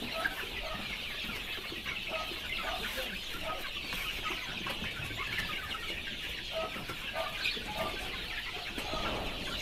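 A flock of young Darag native chickens peeping and clucking: a constant chatter of many overlapping high calls, with scattered shorter, lower clucks.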